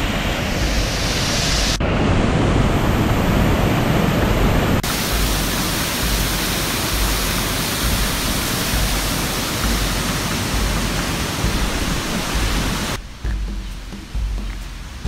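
Düden waterfall pouring over a cliff: a loud, steady rush of falling water. It changes abruptly twice in the first five seconds, and about thirteen seconds in it falls to a much quieter background.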